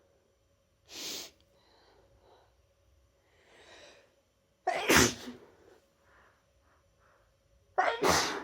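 A person with a cold sneezing, set off by chhinkni, a sneeze-inducing herb. A short sharp burst of breath comes about a second in, then a breathy intake, then two loud sneezes, one about halfway and the loudest near the end.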